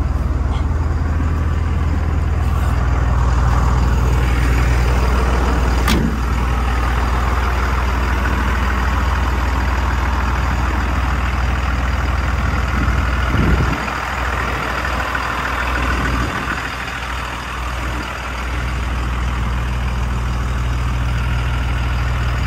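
2003 Freightliner MT-55's 5.9-litre Cummins diesel idling steadily while parked, with one sharp knock about six seconds in.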